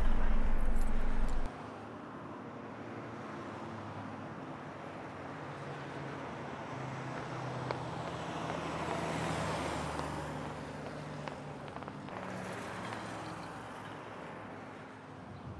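A loud low rumble cuts off suddenly about a second and a half in, leaving steady outdoor road-traffic noise. Traffic swells to a peak about nine seconds in, as a car goes by, and fades again.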